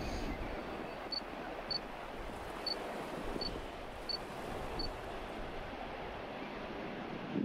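Wind on the microphone over a steady wash of sea, with a short high peep repeating about once a second.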